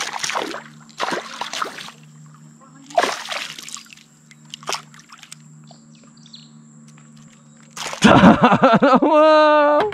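Hooked peacock bass thrashing at the surface beside a kayak as it is landed with a lip grip: several short bursts of splashing, then louder, longer splashing about eight seconds in.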